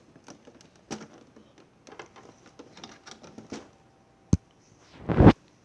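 Plastic Lego bricks and building sections clicking and rattling as they are handled, pulled apart and fitted together, with many small scattered clicks. A sharp click comes about four seconds in, and a louder thump just after five seconds in.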